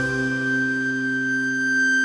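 Instrumental background music: one long held high note over a sustained low chord.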